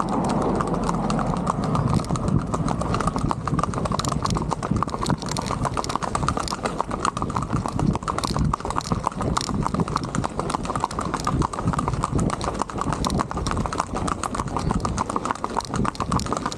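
Horse's hooves on an asphalt road: a rapid, even clip-clop of hoofbeats as the horse moves along at a quick gait.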